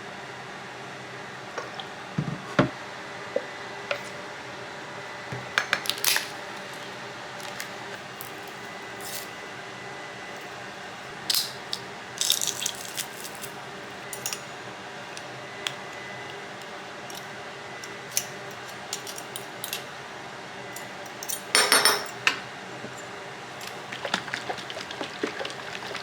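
Kitchen cooking clatter: dishes and utensils clinking and knocking in irregular short bursts, with a longer, denser run of clatter about three-quarters of the way through, over a faint steady hum.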